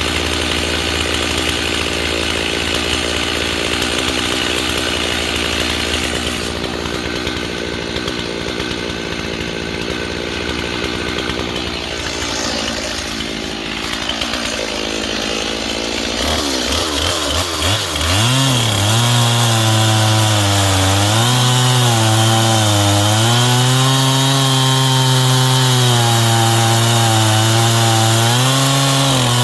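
Chainsaw running: steady at a lower pitch at first, then revved up about two-thirds of the way in. From there it runs at high speed, its pitch dipping and recovering as it cuts into the tree being felled.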